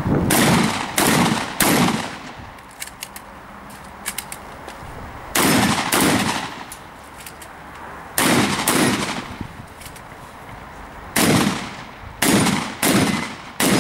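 About eleven loud shotgun shots, fired in quick groups of two or three roughly half a second apart, with pauses of two to three seconds between the groups; each crack rings on briefly.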